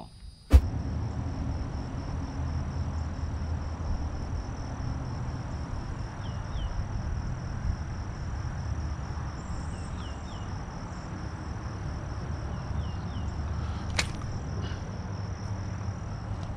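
Outdoor ambience: a steady low rumble like wind on the microphone under a thin, steady high insect trill, with a few faint short chirps. A sharp pop comes just after the start, and a single sharp click about 14 seconds in.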